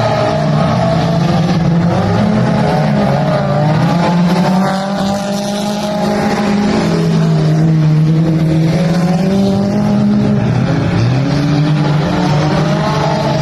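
Dirt-track race car engine running hard during a race, its pitch rising and falling with the throttle, with a brief drop in level about five seconds in.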